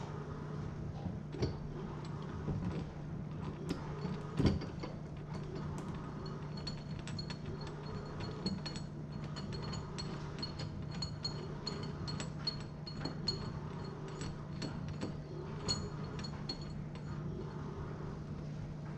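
Hands working a fuel sump fitting in the bottom of a fuel tank: small clicks and scrapes, one sharper knock about four and a half seconds in, then a run of small, irregular, ringing clicks, over a steady low hum.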